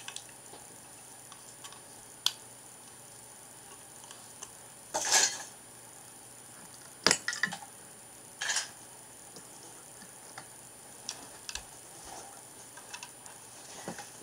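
Plastic Lego bricks being handled and snapped together: scattered sharp clicks, with short rattling clatters about five seconds in and again about eight and a half seconds in, and a loud single click about seven seconds in.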